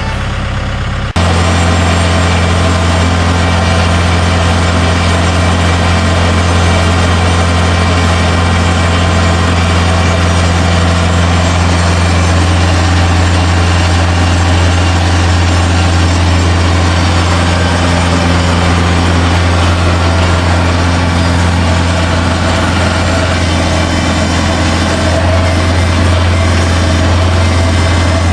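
Engine of a snow-plowing vehicle running steadily with a strong, deep hum. It cuts in suddenly about a second in.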